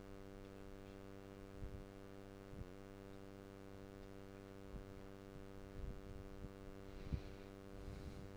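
Steady electrical mains hum, a low buzz made of several even tones, with a few faint low thumps, the strongest about seven seconds in.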